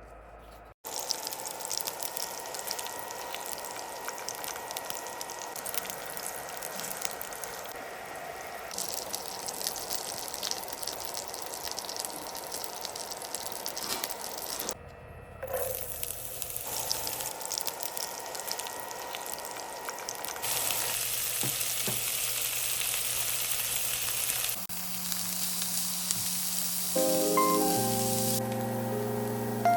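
Food sizzling and crackling in hot oil in a frying pan, heard in several short cuts one after another. Marimba-like music comes in near the end.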